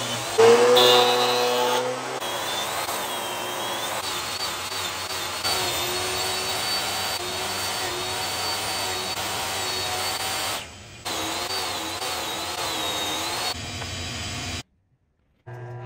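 Portable jobsite table saw running and cutting wood boards on a crosscut sled, its motor whine dipping and wavering under load. It starts loudly about half a second in, changes abruptly at several points, and breaks off for about a second near the end.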